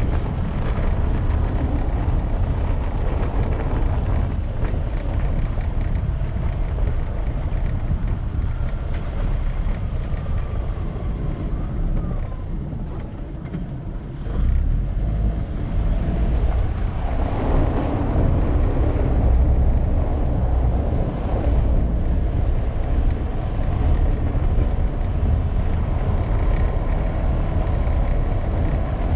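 Car driving over cobblestones: a steady low rumble of tyres and vehicle noise, with wind buffeting the camera microphone. It quietens briefly about halfway through, then picks up again.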